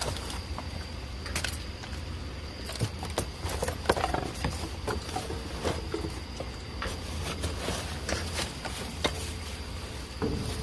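Cardboard boxes and plastic bags rustling and knocking as trash is rummaged by hand and with a metal grabber tool, with scattered clicks and clatters and a few louder knocks about four seconds in. A steady low hum and a faint high steady tone run underneath.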